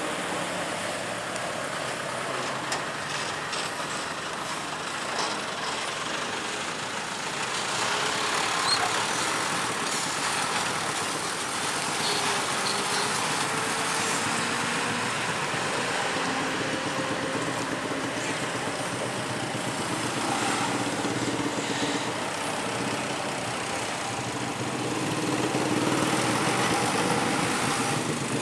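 Roadside traffic: heavy vehicles such as buses and trucks running past with engine and tyre noise, swelling louder about a third of the way in and again near the end.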